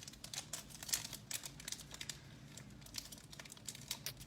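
Hockey card pack wrapper crinkling and crackling as it is worked open by hand, a quick irregular run of sharp crackles; the pack is sticky and hard to open.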